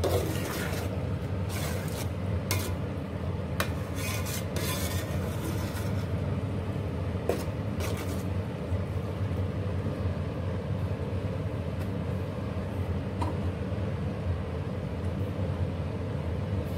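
Metal spoon stirring and scraping chickpea curry in an aluminium pot, with scrapes and clinks mostly in the first eight seconds, over a steady low hum.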